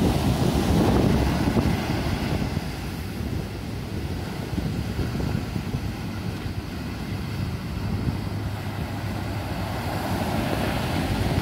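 Wind noise on the microphone over breaking surf, with the engine of a wooden fishing boat running steadily as it drives in through the waves.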